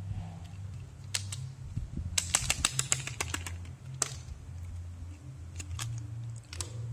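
Crackling clicks of a plastic candy wrapper being handled and torn open: a quick run of clicks about two seconds in, a sharp one near four seconds and a few more near the end. A steady low hum runs underneath.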